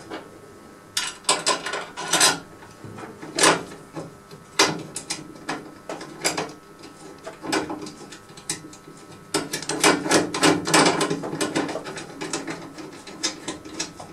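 Small metal and plastic parts being handled and fitted by hand: irregular clicks and short scrapes as a bolt and a caprolactam (cast nylon) roller are worked onto a steel mounting plate, with a denser run of clicking about ten seconds in.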